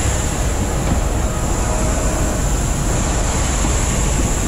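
Steady jet aircraft noise on an airport apron: a continuous roar with a thin, steady high whine, and wind buffeting the microphone.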